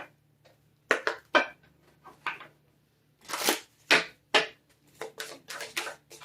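A deck of oracle cards being shuffled and handled by hand: a series of short swishes and slaps, about a dozen, bunched closer together near the end.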